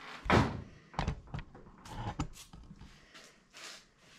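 Aerosol can of Liquid Wrench penetrating oil sprayed in a series of short hisses, the loudest about a third of a second in. The oil is going onto a forend nut that is rusted on and too tight to turn.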